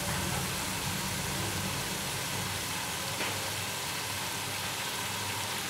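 Masala frying gently in oil in an aluminium pressure cooker on a gas stove: a faint, steady sizzle over a constant low rumble.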